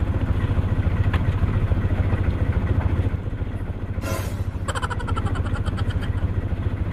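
The outrigger fishing boat's engine runs steadily with a fast, even low chugging. About four seconds in comes a brief hiss, followed by a short, fast rattle of clicks.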